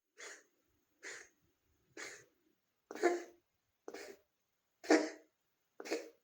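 Cat coughing in a regular series of seven short hacks, about one a second, louder after the first three. The owner wonders whether the cough comes from a heart problem.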